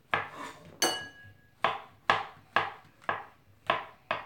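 Kitchen knife slicing mushrooms on a wooden cutting board: eight sharp knocks of the blade on the board, about two a second. The second knock carries a short ringing tone.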